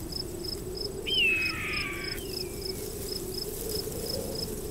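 Cricket chirping steadily in short, high, evenly spaced pulses, about three a second, over a low steady hum. About a second in, a single pitched call falls in pitch over roughly a second.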